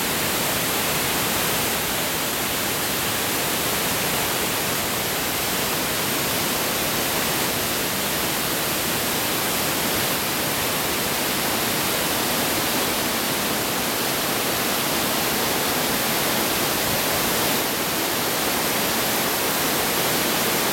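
Steady rushing of a waterfall, water pouring over rocks and a wooden weir, an even hiss that does not change.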